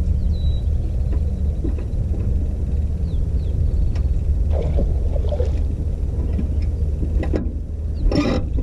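A hooked largemouth bass splashing at the surface beside the boat, a short burst near the end, over a steady low rumble.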